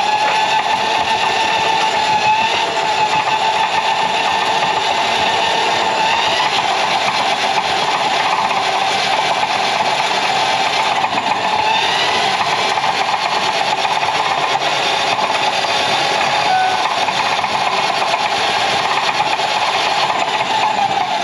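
Motorized drain-cleaning machine running steadily, its motor whine dipping briefly every few seconds as it loads up.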